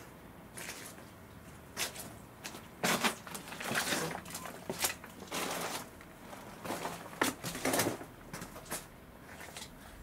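Crunching and rustling of footsteps and movement over leaf litter and debris, in irregular bursts with short pauses between.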